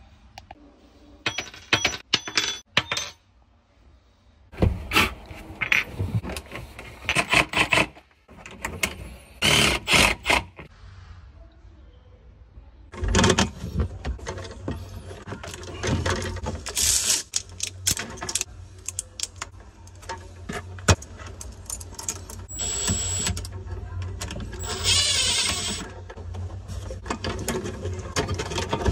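Metal clinking, rattling and scraping as armored cable and wires are handled and worked into a metal electrical box, in separate bursts that come thicker in the second half. A steady low hum runs under it from about halfway.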